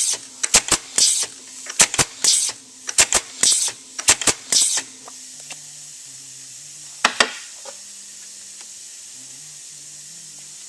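Pneumatic automatic tagging machine cycling: a quick run of sharp clicks from its air cylinders and short bursts of exhaust air for about five seconds. Then a steady hiss of compressed air, broken by a double click about seven seconds in.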